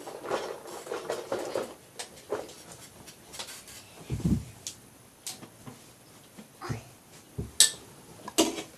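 Scattered knocks and clicks of household things being handled and put away, with a dull thump about four seconds in.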